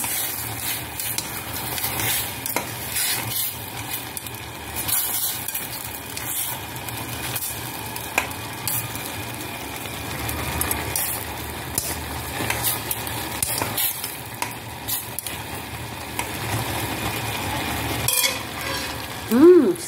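Noodles and dumplings in broth boiling in a stainless steel saucepan, a steady sizzling hiss, with chopsticks clicking against the pot now and then.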